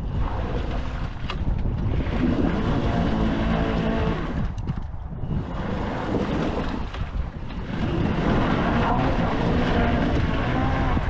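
Hecht 59399 electric ATV's motor whining under load as its wheels slip on ice, with short lulls around four and seven seconds in. Wind noise on the microphone runs underneath.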